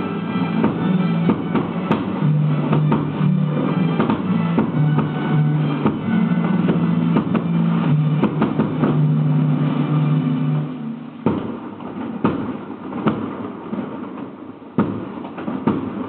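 Music with held low notes and percussion. About eleven seconds in the low notes drop out, leaving sparser, separate percussive hits.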